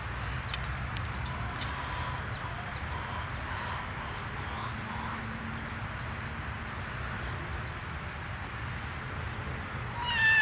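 Faint short high chirps over a steady low rumble, then one loud, brief animal cry with a clear pitch near the end.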